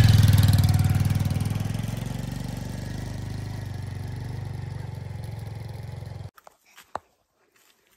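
An engine running with a pulsing low hum, loudest at first and fading over several seconds, then cut off abruptly about six seconds in, leaving only faint clicks.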